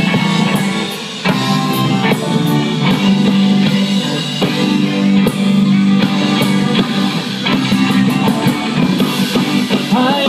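Live rock band playing an instrumental passage on electric guitars and a drum kit, loud and steady, with no vocals yet.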